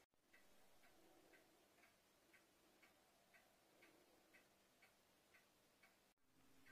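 Near silence but for a clock ticking faintly and evenly, about two ticks a second.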